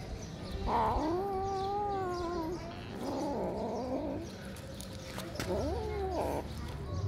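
Kitten meowing three times: a long drawn-out meow about a second in, a wavering, rougher one around three seconds, and a shorter meow that rises and falls near the end.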